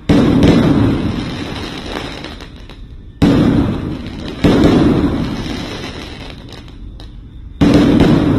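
Aerial firework shells bursting overhead: four sudden booms, the first at the very start, two close together in the middle and one near the end, each dying away over a couple of seconds.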